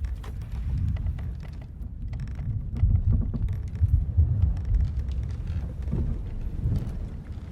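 Sailing-ship ambience: a deep rumble of wind and sea that swells in the middle and eases near the end, with many small creaks and clicks of the ship's timbers over it.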